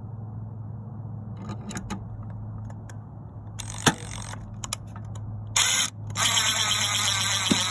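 Cordless drill driving a screw through a sheet-metal vent-support plate into a wall anchor. A few clicks and two short bursts of the motor come first, then a longer steady run from about six seconds in.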